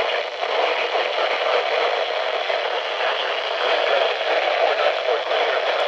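Steady static hiss from a weak NOAA Weather Radio signal received from a distant transmitter, with no broadcast voice coming through clearly.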